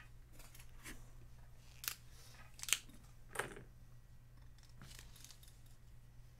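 Trading cards and their plastic sleeves or packaging being handled: a handful of short, sharp scrapes, the loudest three around the middle.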